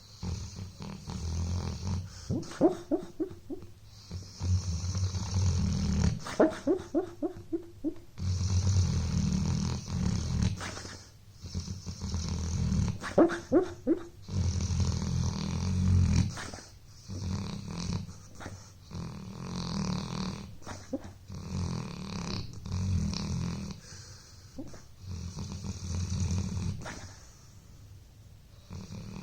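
A sleeping dog snoring in a steady rhythm of long breaths, about one every three seconds. Three of the snores carry a higher-pitched rattling note.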